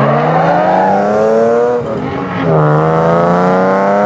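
Drift car's engine held at high revs, its pitch climbing steadily. About halfway through the note drops away briefly, then it comes back in and climbs again. A hiss from the sliding tyres runs underneath.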